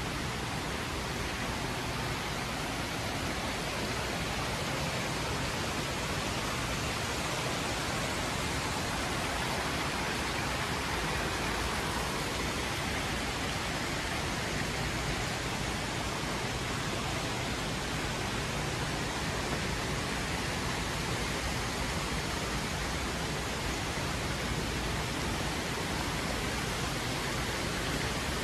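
Steady rush of falling water from fountains, an even hiss that doesn't change.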